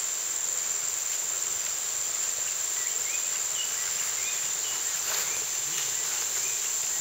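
Insects calling in a steady, unbroken high-pitched drone, with a few faint short chirps in the middle.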